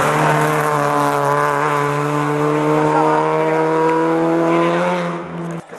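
Fiat Punto rally car's engine held at high revs under acceleration, its note climbing slowly as the car passes and pulls away. The sound fades about five seconds in and cuts off abruptly just before the end.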